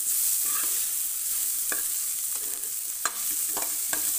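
Chopped onion, garlic and ginger sizzling in hot ghee in a kadhai while they fry toward golden brown, with a metal ladle stirring and scraping, clicking against the pan several times in the second half.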